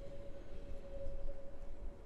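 An approaching railcar running in the distance: a steady whine over a low rumble.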